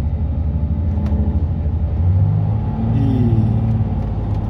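Heavy truck's diesel engine running steadily under way, heard from inside the cab as a low, even hum.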